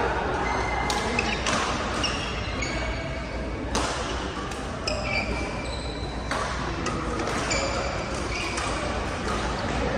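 Badminton rally in a large echoing sports hall: a string of sharp racket hits on the shuttlecock, irregularly spaced about a second or two apart, with short high squeaks of court shoes between them.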